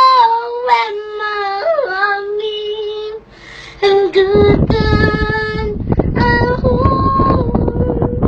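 A child singing alone, holding long, drawn-out notes. About four seconds in, a loud, rough rushing noise comes in under the voice and continues alongside the singing.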